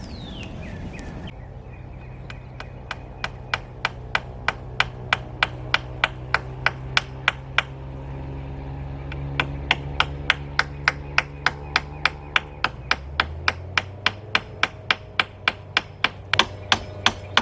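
A hammer driving nails into wood with steady, evenly spaced blows, about three a second. There is a short pause in the middle, and the blows come faster near the end. A steady low hum runs underneath.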